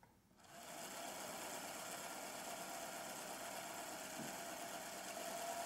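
Electric Eel Wheel 5 electric spinning wheel running with its flyer spinning: a quiet, steady whir with a faint steady tone, starting about half a second in. This wheel is fully broken in, the running noise of a worn-in wheel.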